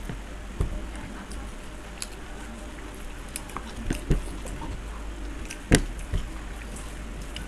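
Close-miked eating of chowmein noodles by hand: scattered wet mouth clicks and smacks of chewing, the sharpest about five and a half seconds in, over a steady low hum.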